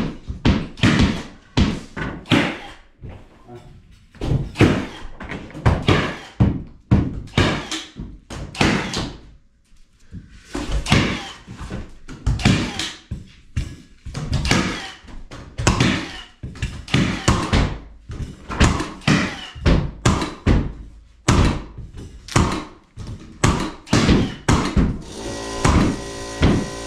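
Repeated knocks and thuds, irregular, about one or two a second, with a short lull just before the middle. Near the end a steady hum starts up.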